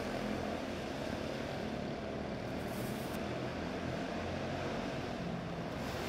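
Quarter midget race car engines running steadily at speed during a heat race.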